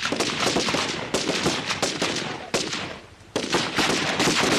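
Automatic rifle fire: several bursts of rapid shots with brief pauses between them, the last burst starting a little past the three-second mark.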